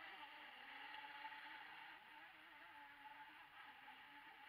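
Faint, buzzing whine of a Neptune 28 RC speedboat's motor running out on the water, its pitch wavering slightly and dropping a little in level about two seconds in.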